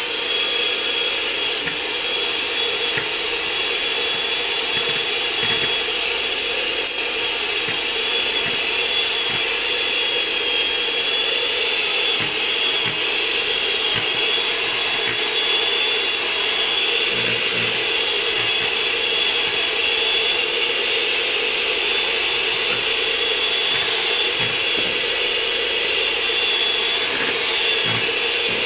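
Clikon electric hand mixer running steadily with a high whine, its twin beaters whipping milk and cream in a plastic bowl.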